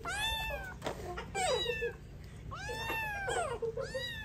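Tabby kitten meowing about four times in a row, each meow rising then falling in pitch.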